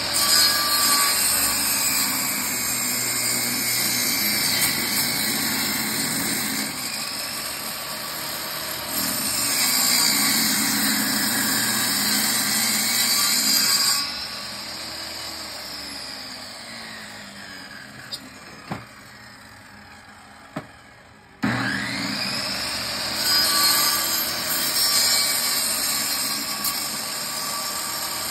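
Portable table saw running and ripping an old weathered pressure-treated 4x4 lengthwise. The motor is switched off about halfway and winds down with a falling whine and a couple of light knocks, then starts again about three-quarters in and runs on.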